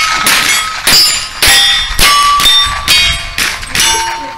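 Rapid string of rimfire rifle shots, each followed by the ring of a struck steel plate target, about eight in quick succession at roughly two a second, each plate ringing at its own pitch.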